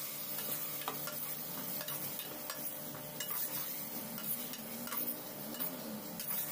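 Metal slotted spoon stirring and scraping minced meat in an aluminium saucepan, with irregular clinks against the pan over a steady sizzle as the keema cooks in its liquid.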